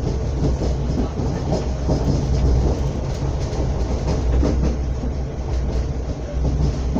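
Passenger train running at speed, heard from inside the carriage: a steady low rumble of wheels on the track.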